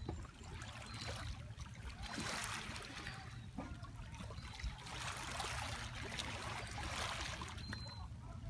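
Small waves lapping and washing over the pebbles at the water's edge, swelling and fading every two or three seconds, over a steady low rumble.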